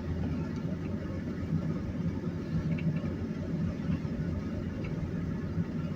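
A car moving along the road: a steady low rumble of engine and tyre noise, heard from inside the cabin.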